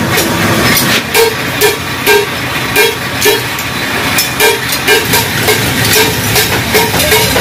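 Stick welding on stainless steel pipe bends: a continuous crackling hiss from the arc, with a low pulse repeating about twice a second underneath.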